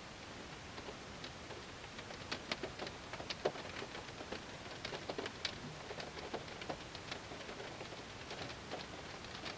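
Rain falling on a car: a steady hiss with many separate drops ticking sharply on the glass and body, thicker from about two seconds in.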